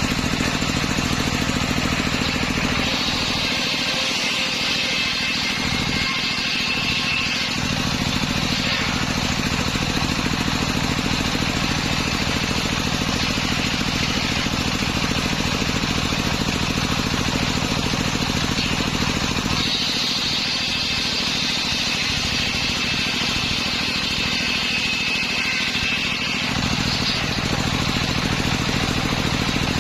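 Engine-driven homemade circular saw running steadily, its blade cutting through timber twice, each cut a high whine lasting several seconds while the engine note drops under the load.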